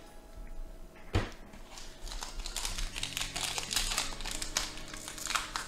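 Pokémon trading cards and booster-pack foil being handled: a sharp tap about a second in, then a rapid run of small clicks and crinkles as cards are stacked and packs are handled.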